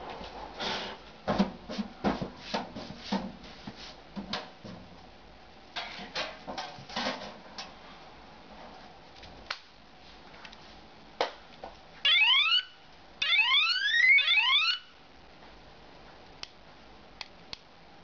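Plastic parts and cable clicking and knocking as they are handled and set down. Then an electronic bicycle horn sounds a short siren-like burst of quick rising whoops about twelve seconds in, followed by a longer burst a second later.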